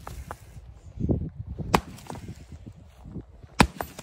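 Pickaxe striking old cement and breaking it up: two sharp hits about two seconds apart, the second the louder, with low crunching between them.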